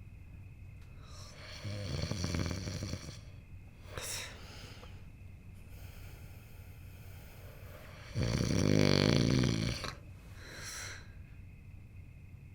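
A person snoring in bed: two long, loud, rattling snores about six seconds apart, with softer breaths between them.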